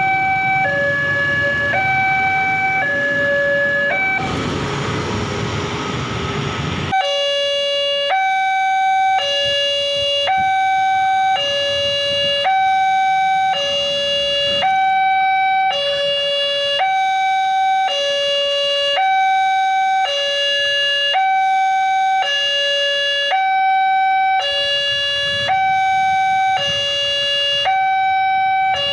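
Indonesian railway level-crossing alarm sounding from the loudspeaker on the crossing post: an electronic two-tone chime alternating high and low, about one pair every second, warning of an approaching train as the barrier arm lowers. Road traffic runs beneath it at first and swells loudly about four seconds in, then the background drops away and only the alarm is left.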